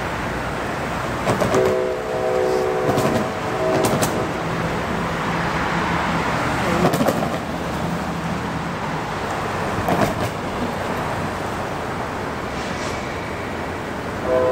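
Diesel freight locomotive's air horn sounding a long chord of several notes from about a second and a half in, for about two and a half seconds, over steady street-traffic noise. Another horn blast begins right at the end.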